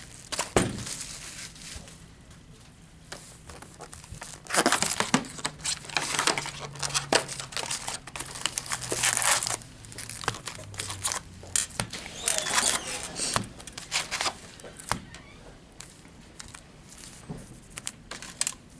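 Plastic wrapping of a baseball card box and its packs being crinkled and torn open by hand, in irregular bursts of crackling.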